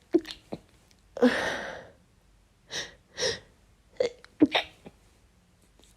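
A woman sneezing: a few short catching breaths, then a loud sneeze about a second in, followed by several shorter breathy sounds. Another sneeze starts right at the end.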